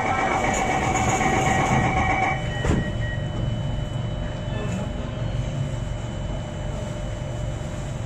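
Door-closing warning tone on an Alstom Metropolis C751A metro train, a steady high tone that stops about two and a half seconds in, followed by a knock as the doors shut. Then the train's steady low hum.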